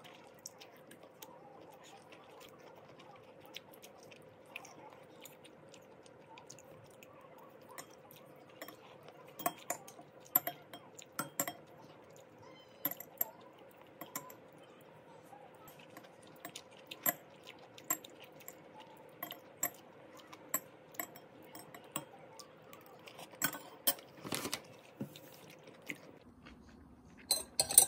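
Metal spoon and chopsticks clinking and scraping against a glass bowl during a meal of noodles, with quiet chewing. The first few seconds are quiet, and the sharp clinks come irregularly after that, the loudest near the end.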